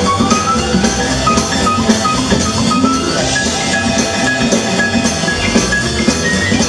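Live big band music with grand piano and drum kit, a steady beat under a line of short, bright high notes that step upward.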